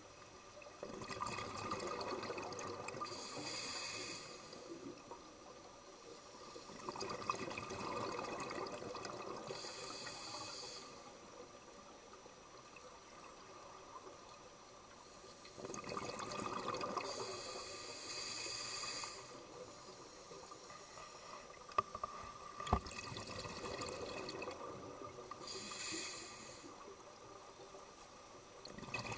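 Scuba diver breathing through a regulator underwater: about four slow breath cycles, each a few seconds of bubbling followed by a short high hiss. Two sharp clicks come about three-quarters of the way through.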